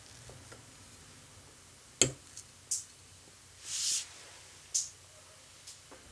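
Metal fork against a ceramic plate and a slice of cheesecake: one sharp clink about two seconds in, followed by a few short, faint, high-pitched sounds and a brief hiss.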